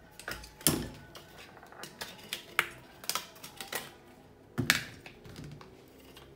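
Hard white plastic housing pieces of a Bosch CNHR22 hand mixer clicking and knocking as they are handled and set down on the floor, in irregular sharp taps, with louder knocks just under a second in and about three-quarters through.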